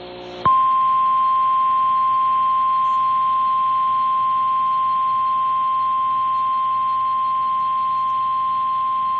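NOAA Weather Radio 1050 Hz warning alarm tone: one steady high beep that starts suddenly about half a second in and holds for about nine seconds over a faint receiver hum. It signals that a warning is about to be broadcast, here a severe thunderstorm warning.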